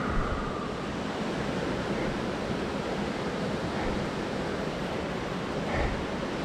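Steady rushing noise of wind buffeting the camera microphone as a mountain bike rides the trail, with a brief low knock just after the start and another near the end.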